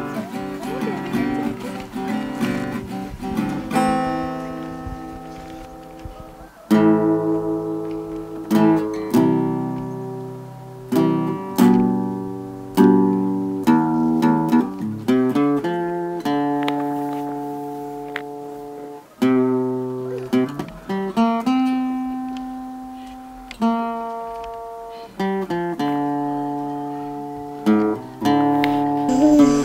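Background music: an acoustic guitar playing picked and strummed chords, each ringing out and fading before the next, a new chord every second or two, louder from about seven seconds in.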